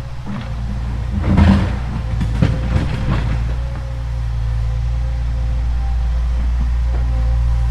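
Excavator's diesel engine running steadily under load, with a burst of sharp knocks and cracks about one and a half to three seconds in.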